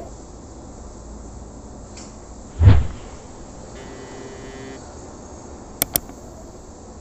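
Pop-up animation sound effects: a single loud low whoosh-thump about two and a half seconds in, then a quick double mouse click near the end, over a steady faint hiss.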